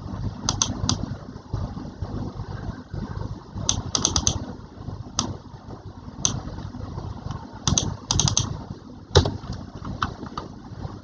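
Keys being pressed on a keyboard: sharp clicks singly and in quick clusters of three to five, spread irregularly, over a steady low rumble.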